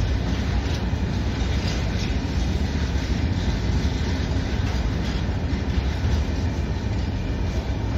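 Freight train of hopper wagons rolling past: a steady rumble of wheels on rail, with faint clicks as the wheels cross rail joints.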